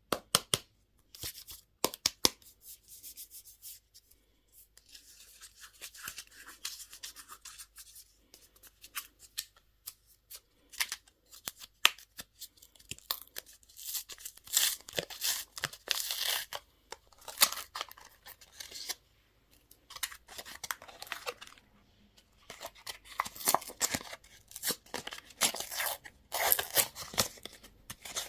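Candy wrappers and packaging being crinkled and torn open by hand, in irregular crackling bursts with sharp clicks.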